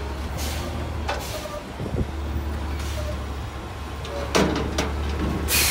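Autocar garbage truck with a McNeilus front-loader body, its engine running steadily with short hisses of air. Near the end come louder clanks and a sharp hiss as its forks engage the dumpster to lift it.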